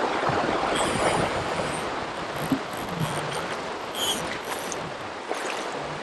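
Steady rush of river water running over a shallow riffle, gradually getting quieter.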